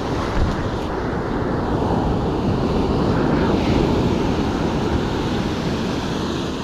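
Ocean surf breaking and washing up the beach, mixed with wind buffeting the microphone; the wash swells through the middle and eases a little near the end.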